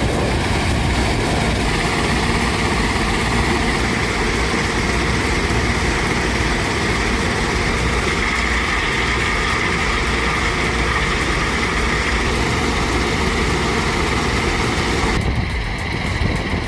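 Heavy diesel machinery running steadily under load, a continuous engine drone with a steady higher-pitched band on top. The sound changes abruptly about a second and a half before the end.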